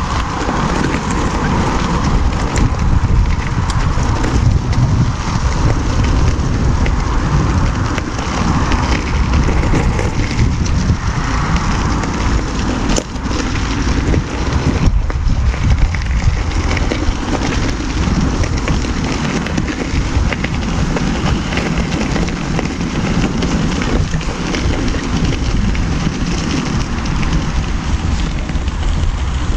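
Tyre of a Ninebot One E+ electric unicycle crunching steadily over a gravel path, with wind rumbling on the microphone and an occasional sharp click from a stone or bump.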